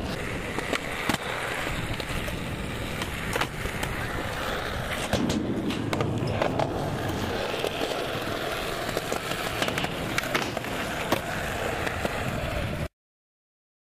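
Skateboard wheels rolling over a concrete skatepark surface, with scattered sharp clacks and knocks of the board. The sound cuts off suddenly near the end.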